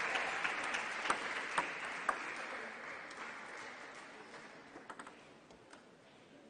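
Applause that fades away over several seconds after a point is won, with a few scattered sharp clicks.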